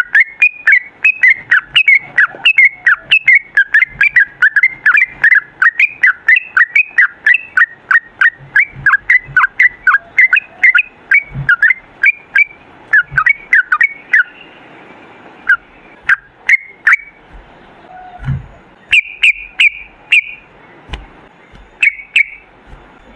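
Yellow-vented bulbul singing a long, fast, bubbling run of chirping notes, about five a second. About two-thirds of the way through it thins out to scattered calls. Sharp clicks are scattered through the song.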